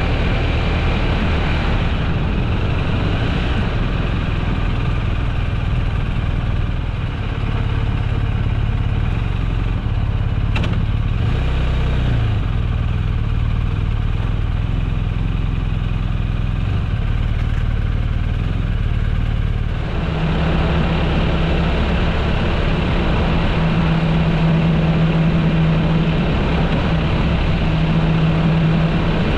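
A vehicle engine running steadily under a wash of noise. About two-thirds of the way through the engine note changes and a steady low hum comes in.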